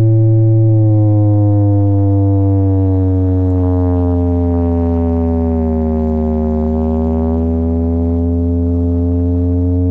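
Large horn-loaded bass cabinets of a sound system playing a deep, loud, sustained drone, with a tone above it that glides slowly down and then back up.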